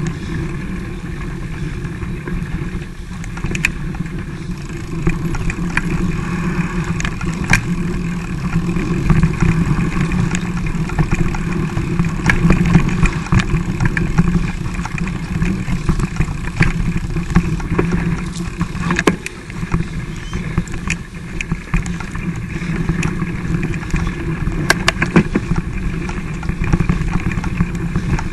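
Mountain bike riding over rough singletrack heard through a camera mounted on the bike: a steady rough rumble from tyres and jolting, with frequent sharp clicks and knocks as the bike and camera rattle over bumps.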